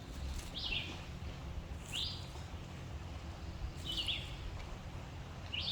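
A bird calling repeatedly, short downward-slurred notes about every one and a half to two seconds, over a low steady rumble.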